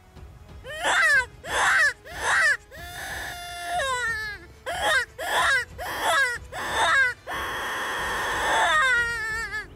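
Roe deer barking: a series of short, hoarse calls, each falling in pitch, coming roughly every half second with short gaps. Near the end comes a longer, raspy call that trails off in a wavering fall.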